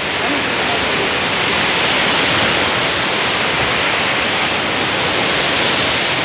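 Steady rush of flowing water, an even, unbroken noise.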